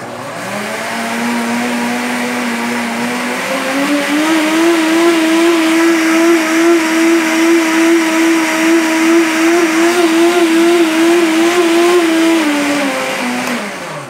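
Mondial ProMaster 1500 blender running with only water in the jar: a loud motor whine over churning water. The whine steps up in pitch about three and a half seconds in, holds steady, then winds down and stops near the end. This shows the high rotation speed that the owner calls excessive for blending açaí.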